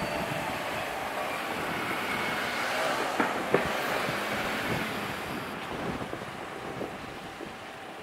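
Steady rumble and hiss of trains and street traffic around a railway station and level crossing, slowly fading. Two short sharp clicks come a little before the middle.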